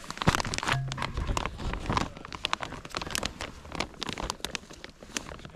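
Plastic maple sap bag crinkling and rustling as gloved hands unhook it from the tap's bag holder, with many sharp irregular crackles and clicks that are busiest in the first two seconds.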